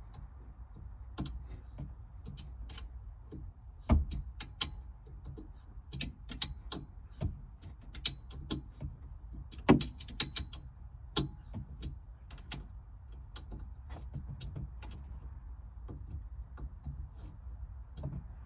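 Irregular clicks and knocks of hand tools and metal hardware being worked inside the Jeep, over a low steady hum. The sharpest knocks come about four seconds in and again near ten seconds.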